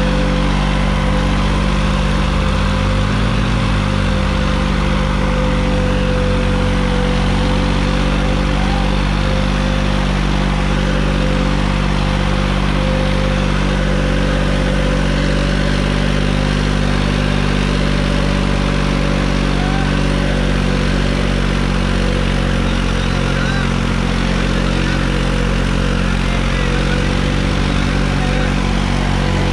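New Holland 3630 Plus tractor's three-cylinder diesel engine running steadily at an even speed, pulling two disc harrows.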